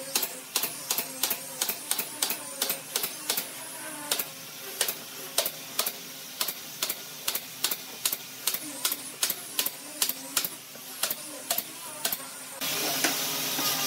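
Pneumatic brad nailer firing nails into pine slats in a quick regular run, about three shots a second. Near the end a burst of hiss.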